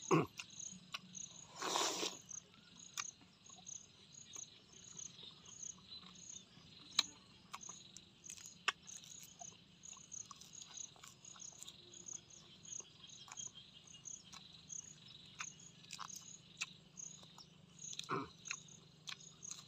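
Insects in the surrounding field chirp in a steady, evenly repeating high pulse throughout. Close-up chewing and mouth clicks of someone eating boiled pork and crisp lettuce run alongside, with a short noisy crunch about two seconds in and another near the end.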